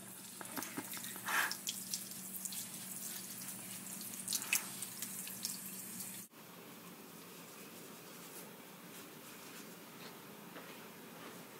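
Water running from a sink faucet over a newborn's head and splashing into the basin. About six seconds in it cuts off abruptly, leaving a faint steady hiss.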